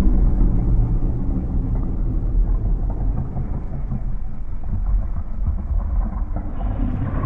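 Deep, steady low rumble.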